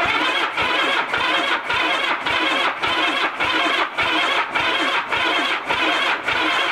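1981 Honda GL1100 Goldwing's flat-four engine cranking over on its electric starter for a compression test on cylinder four. The sound is a steady whirring that dips regularly, about twice a second.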